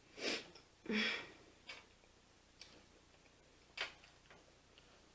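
Close-miked eating sounds: a person chewing with wet mouth clicks and smacks, about five short sharp sounds, the two in the first second the loudest.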